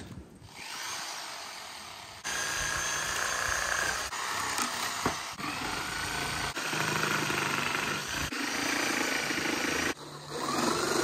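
Corded reciprocating saw cutting through the wooden 2x4 frame, running in several stretches with abrupt breaks between them.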